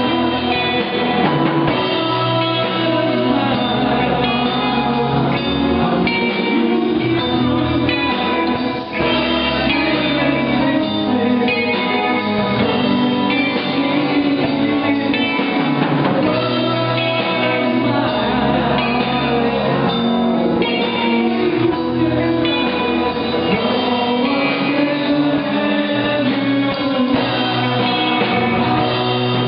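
Live band playing a song: electric guitar, bass and drum kit, with a singer, at a steady loud level.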